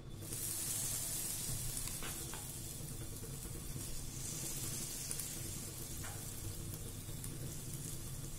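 Banana-oat pancake batter sizzling as it is spooned into hot ghee in a flat pan, the sizzle starting suddenly as the batter hits the fat and then running on steadily.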